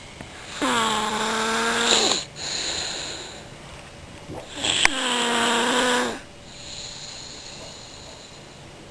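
A person snoring: two long, pitched, almost bleating snores about four seconds apart. Each dips in pitch at the start and then holds a steady tone for over a second, with breathy exhales between them. A sharp click comes just before the second snore.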